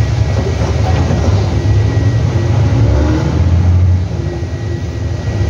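Nissan Diesel CB87L bus's diesel engine pulling, with the deep 'ngorok' (snoring) growl of its exhaust heard from the rear seat inside the cabin. The growl swells toward about four seconds in, then eases off.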